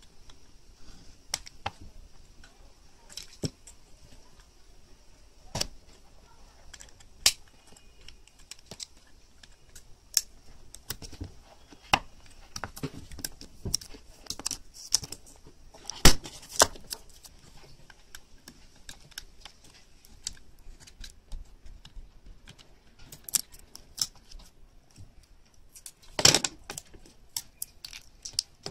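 The foil laminate pouch and inner layers of a phone's lithium-ion battery crinkling and crackling as they are peeled and torn apart by hand, with irregular sharp clicks and snaps. The loudest snaps come about halfway through and near the end.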